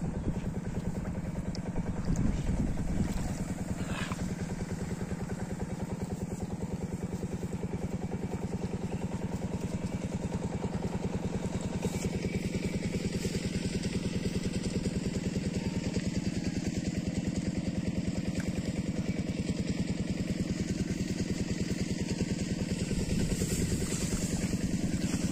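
A small engine running steadily with a fast, even pulse that does not change.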